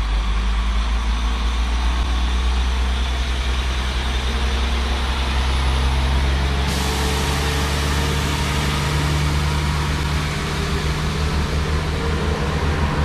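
Diesel multiple unit engines running at the platform, then revving up with a rising pitch as the train pulls away and passes close by. A steady hiss joins about halfway through.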